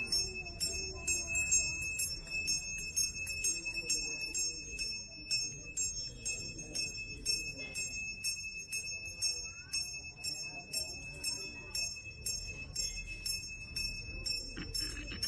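A metal bell ringing in a quick steady rhythm, about three strokes a second, its tone hanging on between strokes, over a low murmur of crowd voices.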